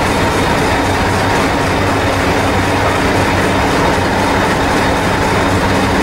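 Diesel engine of a heritage diesel-electric multiple unit, a Hastings unit, idling steadily at a station platform: an even, loud drone with a steady low hum.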